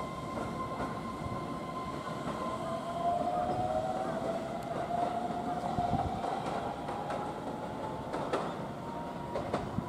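Keihan 13000 series electric train pulling away, its traction motor whine rising slowly in pitch as it gathers speed over a steady rumble of wheels on rail. Near the end a few sharp clicks as the wheels cross rail joints.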